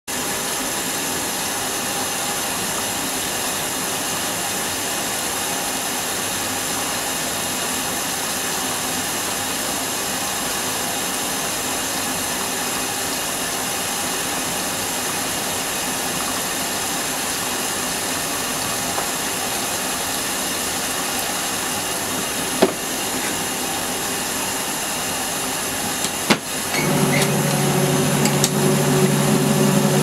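A steady hiss, then two clicks. Near the end the wash motor of a Kuppet twin-tub portable washer starts with a steady hum as the pulsator churns a load of bedding.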